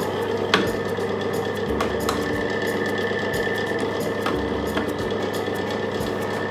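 Robot-Coupe CL20 vegetable preparation machine's motor running at a steady speed, with a few light knocks as its plastic lid and feed head are handled.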